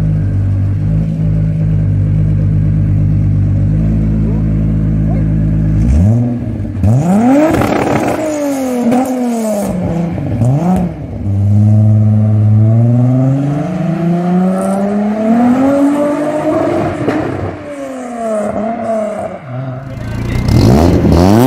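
Mk3 Volkswagen Golf's engine idling steadily, then revved again and again from about six seconds in, the pitch climbing and falling with each blip. Near the end a car engine is revved hard once more.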